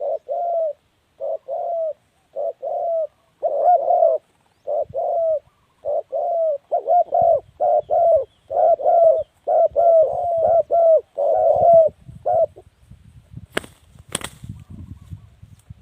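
Spotted dove cooing: a long run of short, low coo notes in quick groups, which stops about three-quarters of the way in. Two sharp clicks follow near the end, with faint low rustling.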